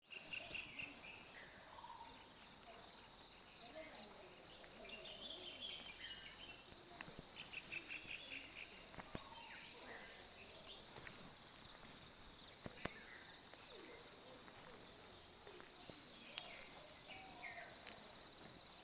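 Faint outdoor ambience: birds chirping on and off over a steady, high, pulsing insect trill, with a few sharp clicks.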